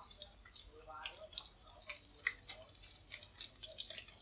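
Vegetable fritters deep-frying in a pan of hot oil: a steady sizzling hiss with frequent small crackling pops.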